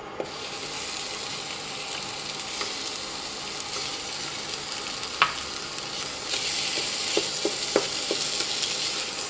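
Mashed potatoes sizzling in hot oil and spices in a stainless steel pan, a steady frying hiss that starts as they go in, with a few clicks of a spatula stirring them in around the middle and later.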